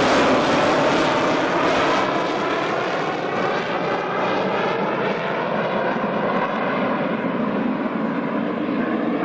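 Jet noise of a Handley Page Victor K.2's four Rolls-Royce Conway turbofans as it flies away after a low pass. The sound stays loud, but its high hiss fades steadily as the aircraft recedes, with a slow sweeping, phasing quality.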